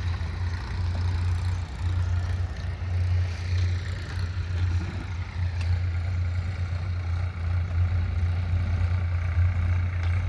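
A steady low rumble that wavers slightly in strength, with a faint hiss above it.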